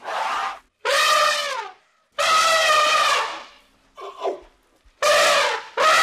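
African elephant trumpeting: a run of about six loud, brassy trumpet blasts, roughly one a second, each dropping in pitch as it ends. The call about four seconds in is shorter and quieter.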